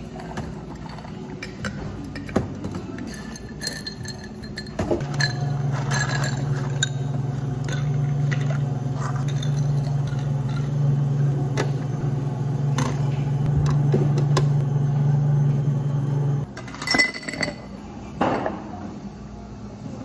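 Glassware and ice clinking as café drinks are made. About five seconds in, a counter appliance's electric motor starts a steady low hum, runs for about eleven seconds and cuts off suddenly.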